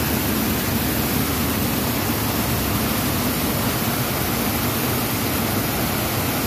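Fountain water pouring over stone wall ledges and splashing into foaming basins: a steady, even rush of falling water.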